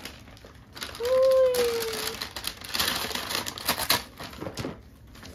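Wrapping paper being torn and crinkled as a present is unwrapped, a dense crackle of ticks lasting about a second and a half, preceded about a second in by a short held voice sound.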